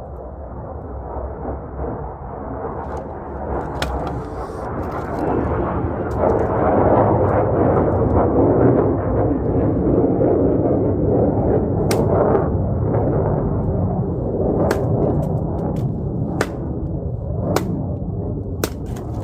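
Oak firewood cracking and breaking under force, with a steady low rumble that builds over the first few seconds. Sharp cracks come out of it, about six, mostly in the second half.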